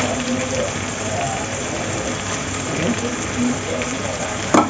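Kuetiau noodles, cabbage and tofu sizzling in the sauce of a hot aluminium wok: a steady frying hiss. A single sharp click comes near the end.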